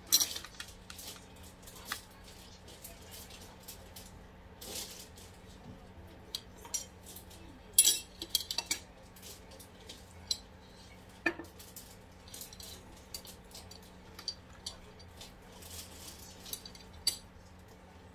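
Cutlery and dishes clinking at a breakfast table: scattered sharp clicks and clinks, the loudest run of them about eight seconds in.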